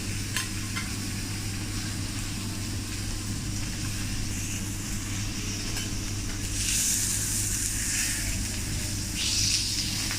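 Food sizzling on a hot teppanyaki griddle, with a couple of light clicks at the start and the sizzle surging louder about two-thirds in and again near the end, over a steady low hum.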